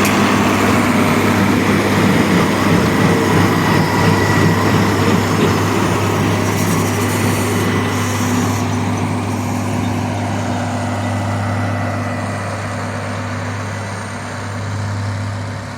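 International Harvester 1026 Hydro tractor running steadily while pulling a working New Holland hay baler, with a constant low engine hum; the sound gradually gets quieter over the last few seconds.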